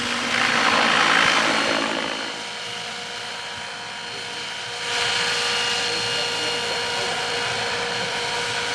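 Radio-controlled model helicopter flying, its rotors whirring with a steady high whine. The sound is loudest about a second in, drops off around two seconds in, and comes back up about five seconds in as the helicopter hovers close.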